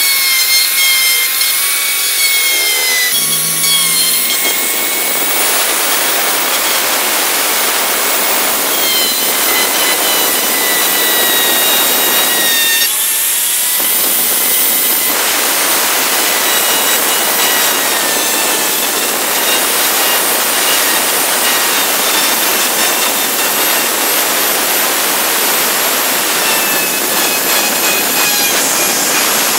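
Handheld electric plunge router running at full speed, its bit cutting a relief pattern into hardwood: a loud high whine over the rasp of the cut, the pitch dipping slightly at times as the cut loads the motor.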